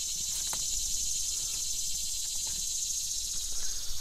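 Steady high-pitched buzzing of insects, a summer insect chorus with a fine, fast pulsing texture.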